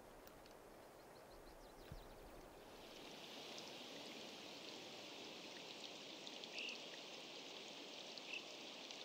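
Water running in a thin sheet over rocks, a faint steady trickle and splash that comes in about three seconds in after a near-silent start.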